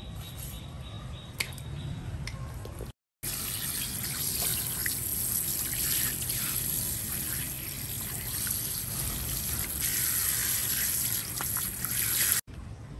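A knife working through fish on a plastic cutting board, with one sharp click about a second and a half in. After a short break, tap water runs steadily over a fish fillet being rinsed by hand.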